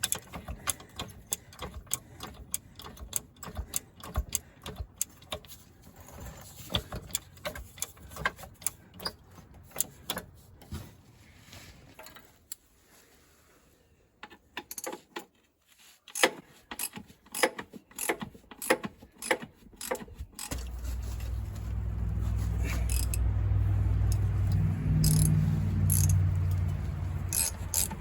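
Hand tools clinking and knocking on metal in quick irregular clicks while working under a bulldozer. About two-thirds of the way through, a steady low machine hum starts and runs on under the clicks.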